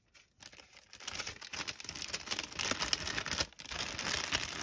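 Clear plastic cellophane packet crinkling as it is handled, a dense run of rapid crackles starting about half a second in.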